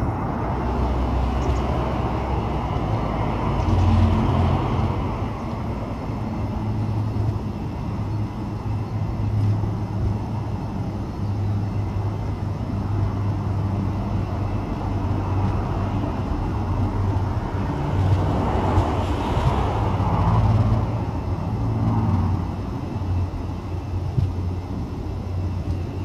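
Steady low rumble of distant road traffic, swelling twice as vehicles pass, about four seconds in and again near the twenty-second mark.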